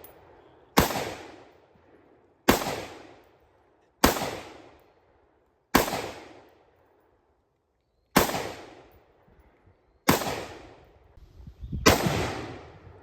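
A series of seven sharp bangs, each striking suddenly and dying away over about a second, spaced roughly one and a half to two and a half seconds apart.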